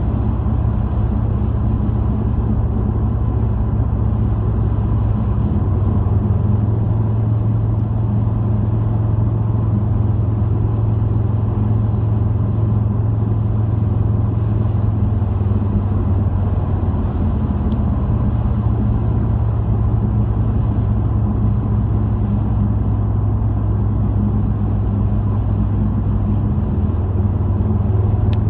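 Car engine and tyre road noise heard from inside the moving car's cabin: a steady low rumble whose low hum shifts slightly about five seconds in and again near the end.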